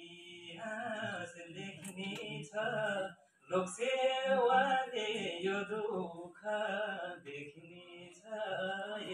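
A man singing a cappella in phrases with long held notes, his voice amplified through a headset microphone.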